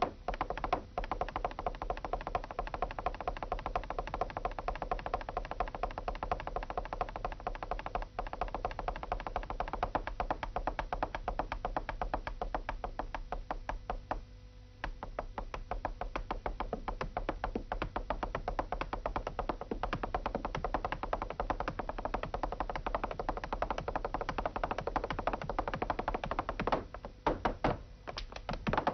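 Flamenco zapateado: a dancer's heeled boots striking the floor in fast, dense rhythmic runs of heel and toe strikes. The footwork breaks off briefly about eight seconds in, for about a second near the middle, and again near the end.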